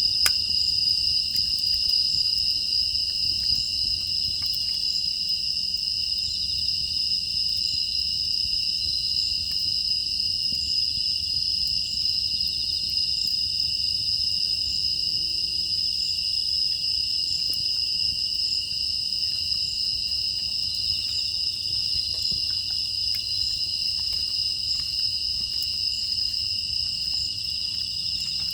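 Continuous chorus of crickets and other grass insects chirring steadily at two high pitches. Faint scattered crackles from a wood fire sit underneath.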